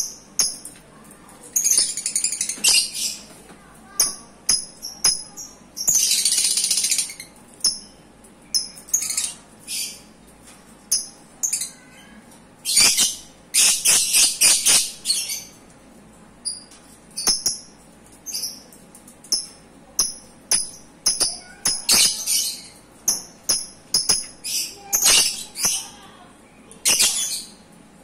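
Caged lovebirds chirping: many short, high-pitched calls in quick, uneven bursts, with longer runs of continuous chatter about six seconds in and again near the middle.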